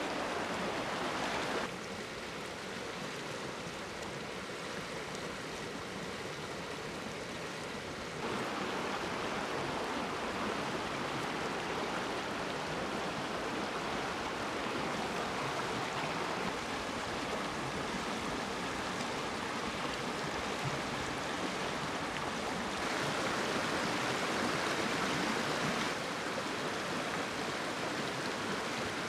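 Stream water flowing and rushing, a steady even noise whose tone and loudness shift abruptly a few times.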